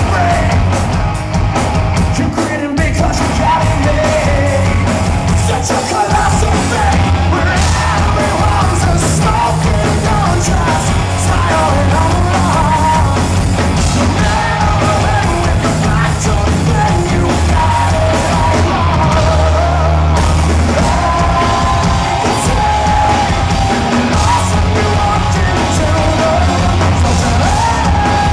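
Live rock band playing loudly: electric guitar, drums and bass, with a male lead singer's voice over them.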